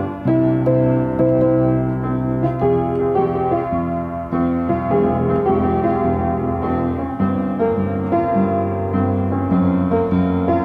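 Solo piano playing a slow piece, with a melody moving above held chords and low bass notes.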